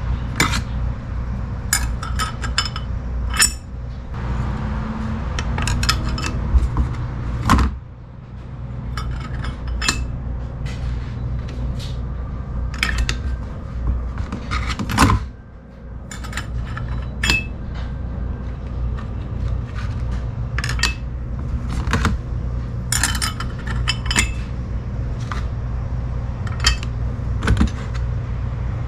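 Steel clutch plates and friction discs for a 42RE automatic transmission clinking and clattering as they are handled and set down one at a time, over a steady low hum.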